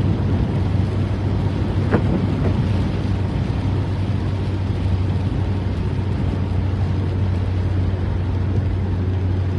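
Inside a moving car on a wet road: a steady low drone of engine and tyres with road hiss, and one small click about two seconds in.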